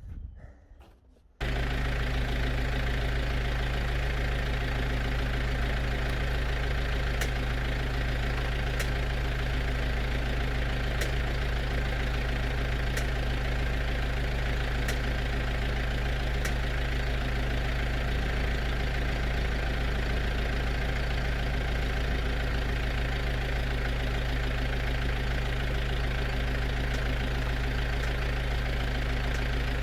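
A motor or engine running steadily at an even idle, cutting in suddenly about a second and a half in, with a few faint sharp ticks every couple of seconds partway through.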